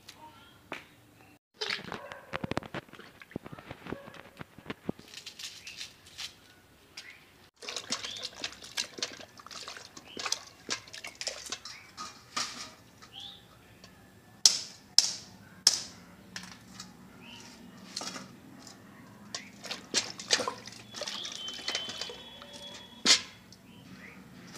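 Vegetables being washed by hand in a steel pot of water: splashing and sloshing, with sharp clinks and knocks of steel utensils, loudest in the second half.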